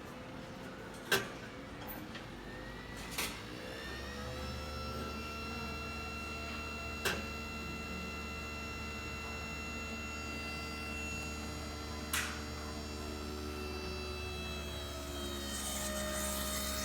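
Vesuvius espresso machine's variable-speed pump starting about four seconds in and running with a steady hum and whine as a shot is pulled, its pitch shifting near the end as the pump changes speed. A few sharp clicks come before the pump starts.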